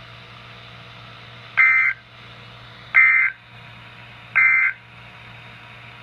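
Three short bursts of NOAA Weather Radio SAME digital data, about a second and a half apart, each a rapid two-tone warble, played through a weather radio's speaker over a steady low hum and hiss. Their shortness marks them as the end-of-message code that closes an alert.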